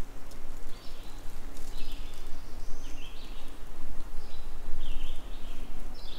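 A small songbird calling over and over: short high notes, each dropping in pitch, about one a second, over a faint low rumble.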